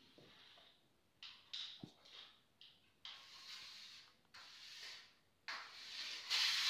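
Ground rice-and-lentil dosa batter being tipped and scraped out of a stainless-steel mixer-grinder jar into a bowl: a run of short, hissy scraping noises with one light knock about two seconds in, loudest near the end.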